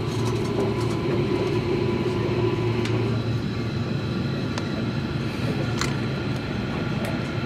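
Steady low hum with a few faint clicks, heard inside a JR Kyushu 305 series electric train car.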